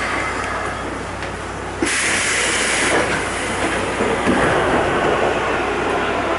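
Keikyu 800 series commuter car heard from the floor above its bogie: steady underfloor rumble and hum, with a sudden burst of compressed-air hiss about two seconds in that lasts about a second.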